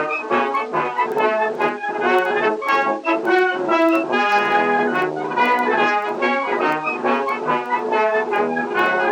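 Instrumental music led by brass, a melody moving from note to note.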